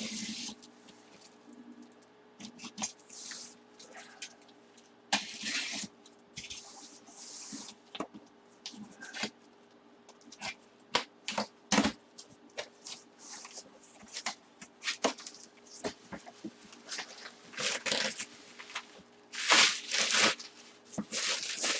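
Taped-up packaging of a full-size football helmet being pulled open by hand: irregular bursts of rustling and tape tearing, with many sharp clicks and scrapes.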